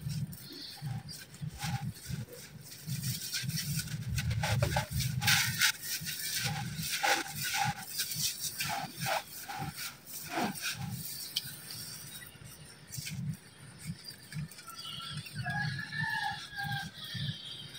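A hand raking and scooping through dry, coarse red gritty crumble (red sand and concrete grit) on a concrete floor: irregular gritty scraping and crunching of small grains. A few short pitched calls come near the end.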